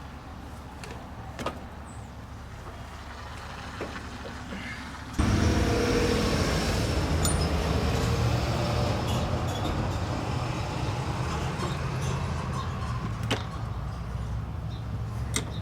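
Faint clicks, then about five seconds in a motor or engine starts abruptly and runs steadily at a loud level, easing off slightly toward the end.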